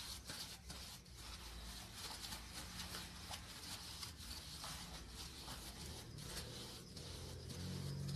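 Faint rubbing and rustling of an oiled paper napkin wiped around the inside of a plastic ring mold, over a low steady hum.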